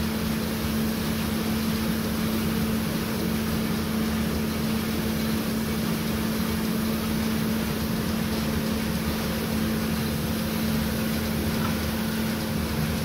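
Steady machine hum with a constant low tone and an even rushing noise, unchanging throughout.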